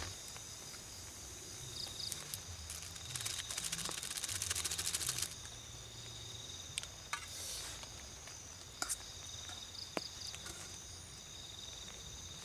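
Crickets and other night insects trilling steadily. A few scattered sharp clicks are heard, with a short patch of fine crackling a few seconds in.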